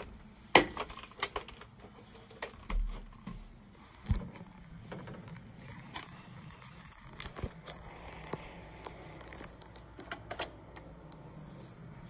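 Scattered clicks, knocks and light scrapes of things being handled, with no vacuum motor running. A sharp click about half a second in is the loudest, a dull thump comes about four seconds in, and a few more clicks follow near the end.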